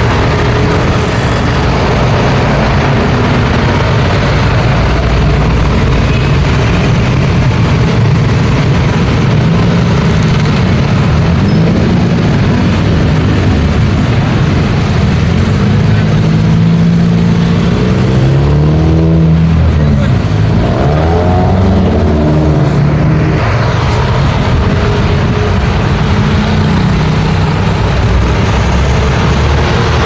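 Busy road traffic: motor scooters, cars and light trucks run and pull away past each other over a continuous bed of engine and tyre noise. Engine pitches rise and fall as vehicles accelerate, most clearly in the middle.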